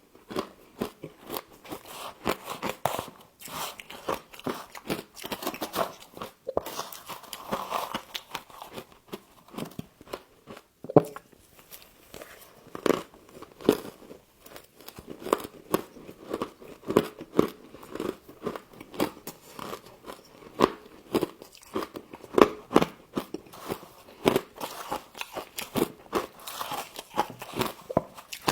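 Humidifier frost being bitten and chewed close to the microphone: a steady run of irregular crisp crunches, several a second.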